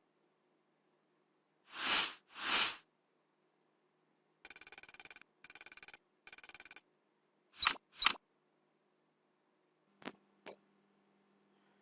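A run of short stock sound effects for motion graphics and editing, separated by silence: two swelling rushes of noise, three bursts of rapid clicking with a ringing tone, a quick pair of sharp swishes, then two clicks and a faint low hum near the end.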